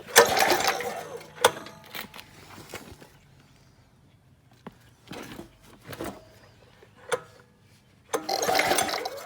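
Recoil starter rope pulled twice on a 6.5 hp pressure-washer engine, each pull a rasping burst of about a second, one right at the start and one near the end, cranking the engine over with the spark plug out and grounded to metal for a spark test. A few clicks and knocks in between.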